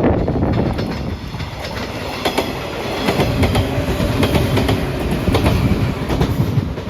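A train passing close by at speed, its wheels clattering steadily over the rail joints.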